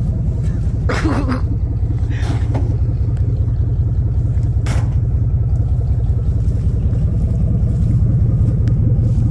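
Pickup truck engine idling steadily close by, with a few brief rustles and a knock about four and a half seconds in as a plastic-wrapped bundle is tossed into the truck bed.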